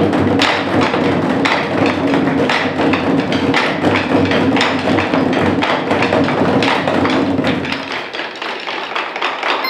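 Rhythmic percussion music: sharp, woody strikes about twice a second over a held low tone that drops out about eight seconds in.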